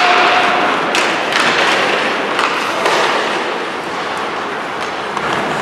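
Ice hockey play: skates scraping on the ice, with several sharp clacks of sticks and puck and knocks against the boards, echoing in the rink.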